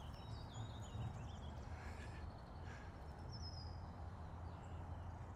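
Faint outdoor ambience: a few distant birds chirping over a low, steady rumble.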